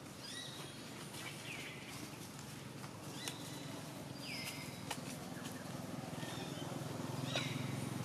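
A few short, high-pitched animal chirps, some falling in pitch, spaced a second or more apart, over a low hum that grows louder near the end.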